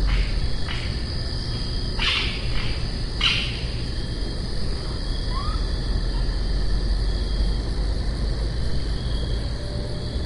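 Night insect chorus, crickets trilling in a steady high drone, over a low constant rumble. In the first few seconds an animal gives several short, harsh calls, and a faint brief chirp comes about five seconds in.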